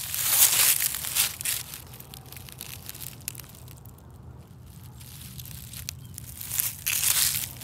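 Footsteps crunching through dry fallen leaves: a few steps at first, a pause of several seconds, then walking again near the end.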